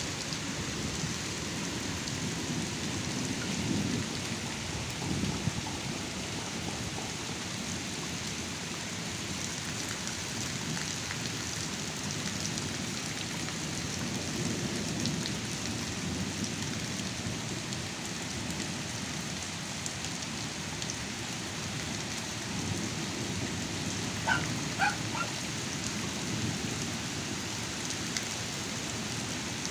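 Heavy downpour, with thunder rumbling low and continuously underneath, swelling and fading like a drone.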